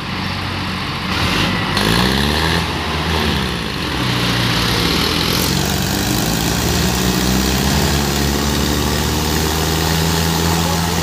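Mahindra Arjun tractor's diesel engine revs up from about a second in, pitch rising for a few seconds, then runs steadily under heavy load. The tractor is stuck in mud and straining against another tractor pushing bumper to bumper.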